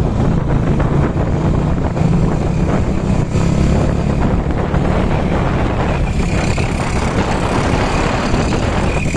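Motorcycle engine running steadily at road speed, with wind noise on the microphone.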